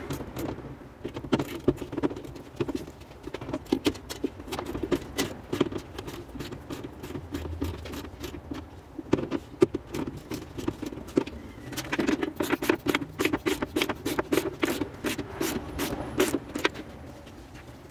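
Hand tool clicking and tapping against the metal fastenings on the underside of a car's trunk lid as a rear wing is bolted on: irregular short clicks that come thicker and faster about two-thirds of the way through.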